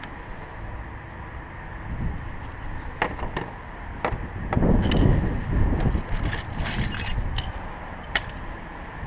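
Loose metal hand tools clinking and rattling as a hand sorts through a soft tool bag, with a few sharp clicks and a thicker run of clinks in the second half. Wind noise rumbles on the microphone underneath.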